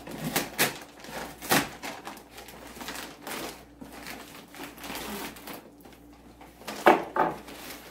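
Plastic mailer wrapping crinkling and tearing as it is pulled off a cardboard box by hand, with irregular sharp crackles and rips; the loudest two come close together near the end.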